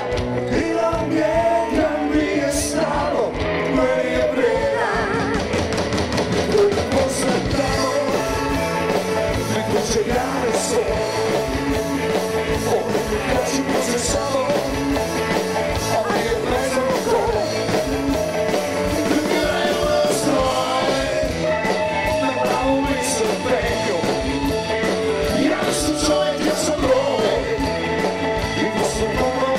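A live rock band playing, with a man singing lead over keyboards, drums and electric guitar.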